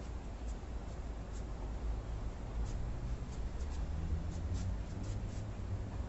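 Faint, short scratchy swishes and scuffs, several in the second half, as a pair of Wing Chun butterfly knives is moved through a form, over a steady low rumble.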